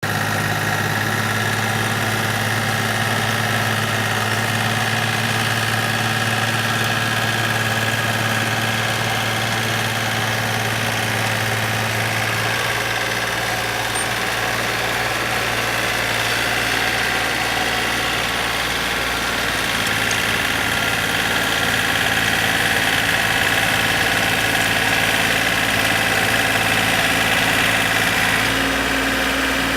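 Engine of a rice-paddy plowing machine running steadily, its low hum changing tone about 12 seconds in.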